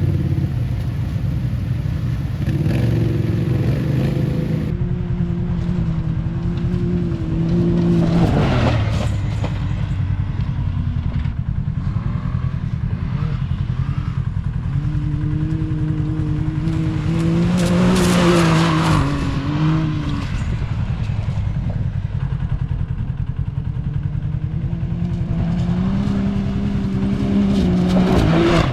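Can-Am Maverick X3 side-by-side's turbocharged three-cylinder engine driving under throttle, its pitch climbing and dropping several times. A loud rushing burst comes three times, about 8, 18 and 28 seconds in.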